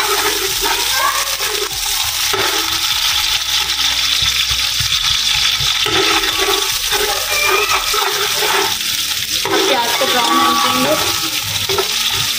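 Sliced onions sizzling steadily in hot oil in a large aluminium pot, with a metal spatula scraping and knocking against the pot as they are stirred.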